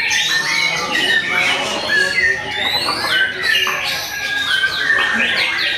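Several white-rumped shamas (murai batu) singing at once from contest cages: a dense, overlapping tangle of fast whistled phrases and repeated falling sweeps.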